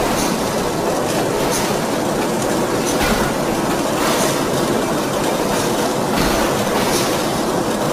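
D53K CNC radial-axial ring rolling mill rolling a red-hot steel ring: steady, loud machine noise from the rolls working the turning ring, with faint hiss recurring every second or so.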